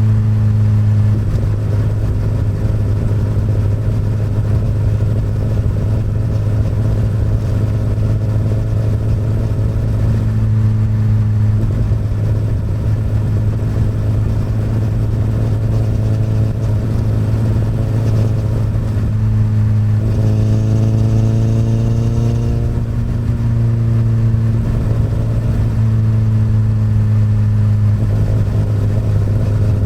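Honda CBR1000RR's inline-four engine running through an Akrapovic exhaust at fairly steady revs, heard from on the bike while riding. The exhaust note swells a little about two-thirds of the way through, then settles again.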